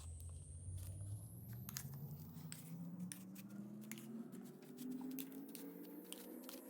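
Slime being squished and mixed, giving many small wet clicks and crackles, over a tone that slowly rises in pitch.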